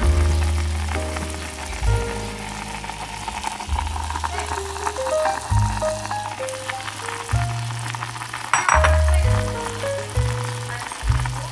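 A small saucepan of soup at a rolling boil on a gas stove, a steady bubbling sizzle, under background music with sustained bass notes and a simple melody.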